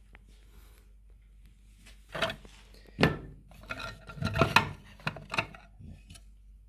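Small 3D-printed plastic scale-model parts being handled, clacking against each other and the table with some rubbing and scraping. The loudest knocks come about three seconds in and again around four and a half seconds.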